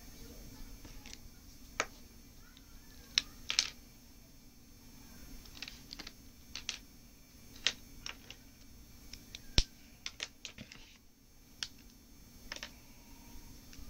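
Pencil tapping and stroking on sketch paper: irregular sharp clicks and taps, a few at a time with pauses between, over a faint steady hum.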